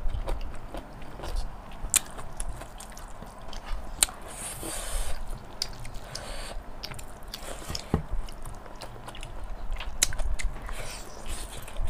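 Close-miked eating sounds: chewing and biting pork and rice, with scattered sharp clicks and short rustles as the food is handled.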